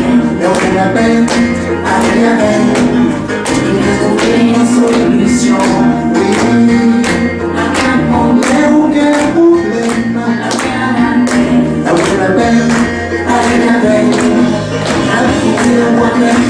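Male singer singing into a microphone over a played-back backing track with a steady beat and bass line, with the audience clapping along.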